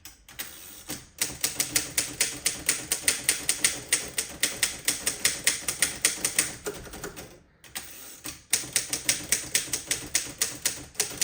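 Underwood No. 5 manual typewriter being typed on at a quick, steady pace, about five to six keystrokes a second, with the typebars striking the platen. There is a pause of about two seconds just past the middle.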